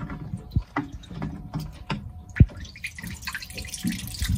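Water dripping and trickling in an opened Groco raw-water strainer for a boat's air conditioner as its cap is unscrewed and lifted off. A few plastic clicks and knocks come from the cap, the loudest about two and a half seconds in.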